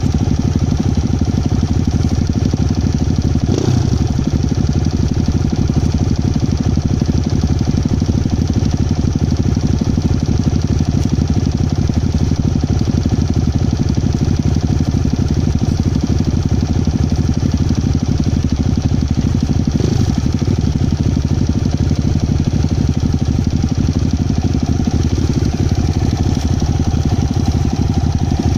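Honda CRF 250 Rally's single-cylinder engine idling steadily, picked up close from a phone mounted on its handlebars. Two brief knocks sound over it, about three and a half seconds in and again about twenty seconds in.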